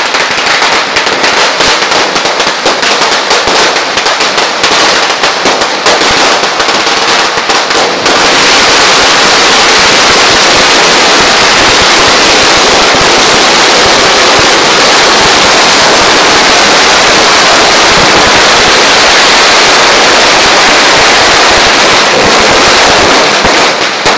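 A long string of firecrackers exploding in a rapid chain of bangs. For about the first eight seconds the cracks come thick but separate, then they run together into one continuous, very loud crackle that thins out just before the end.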